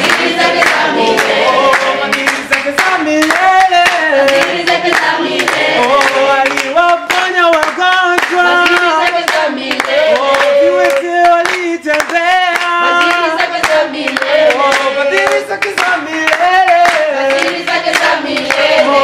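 A small group of men and women singing a worship song together while clapping their hands to the beat.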